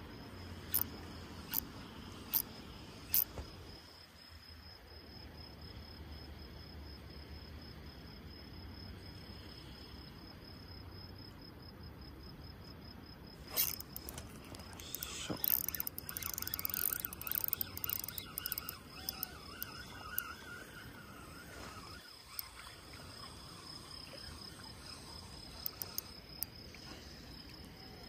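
Steady high-pitched insect trill. A few sharp clicks come in the first few seconds, and a busy patch of clicking and rustling comes in the middle.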